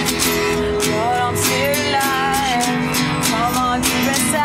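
Two acoustic guitars strummed together in a steady rhythm, with a woman singing a melody over them from about a second in.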